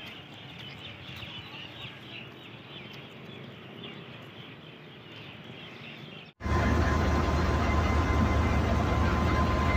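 Small birds chirping faintly. About six seconds in, a sudden cut to a loud running diesel locomotive engine: a deep steady engine note with a thin steady whine above it.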